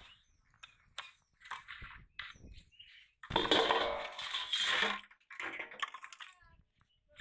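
Empty plastic bottles crinkling and knocking against a steel basin as they are handled, with scattered clicks and taps and a louder burst of crinkling in the middle.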